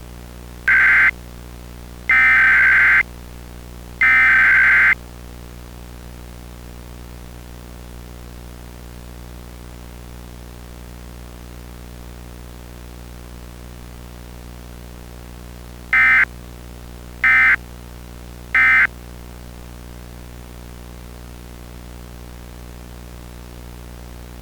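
Emergency Alert System SAME data bursts: three rasping digital header bursts in the first five seconds, then a steady low hum for about eleven seconds, then three short end-of-message bursts about a second and a half apart. This is the pattern of an EAS Required Weekly Test, which carries no attention tone and no spoken message.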